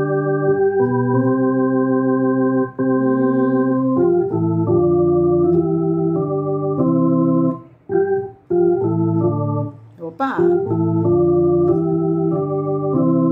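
Electronic organ's lower manual playing the left-hand part of a hymn slowly: held notes and chords that change every second or so, with a couple of brief breaks past the middle.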